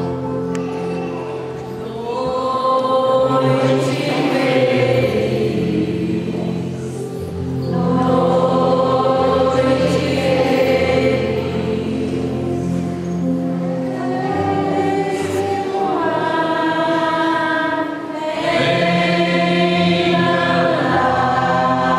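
A choir singing slowly in long held chords, phrase after phrase, with brief dips in volume between phrases.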